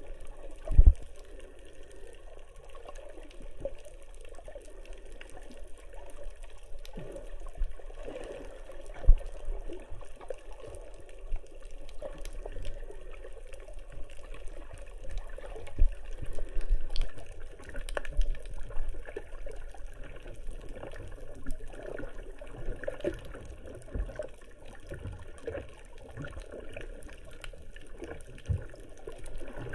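Muffled water sloshing and bubbling around a submerged camera, with scattered sharp knocks and clicks.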